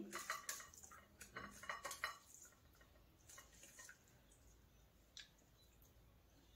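Faint clicks and taps of dishes as rice and chicken curry are mixed by hand on a plastic plate and a steel bowl, thinning out to near silence with one soft tap near the end.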